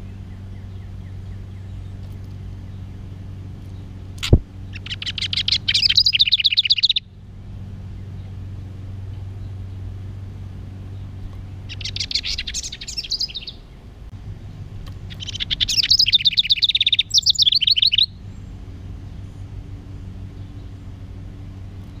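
House wren singing three bursts of its rapid, chattering song, each one to three seconds long, the last the longest. A sharp knock comes just before the first burst, over a steady low hum.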